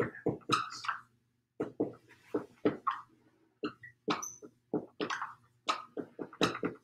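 Dry-erase marker writing on a whiteboard: an irregular run of short squeaks and taps, several a second, as letters are drawn.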